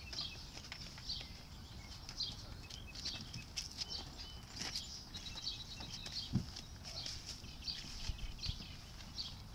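Birds chirping over and over in short high calls, over a low outdoor rumble, with a couple of dull knocks, the loudest about six seconds in, as the boat is handled.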